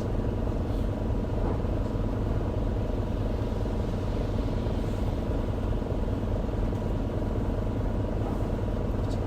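Interior running sound of an Isuzu Erga city bus (QDG-LV290N1): a steady low rumble of diesel engine and road noise inside the cabin.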